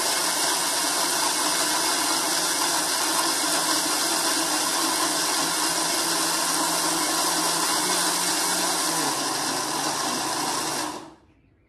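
Electric mixer grinder (mixie) blending mango pieces with milk in its jar, the motor running steadily at full speed, then switched off abruptly near the end.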